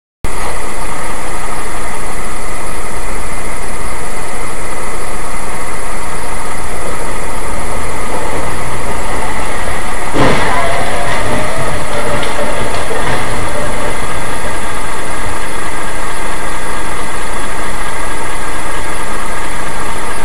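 Loud, overdriven dashcam recording of a car's cabin noise, an engine running with road noise, with one sharp knock about ten seconds in.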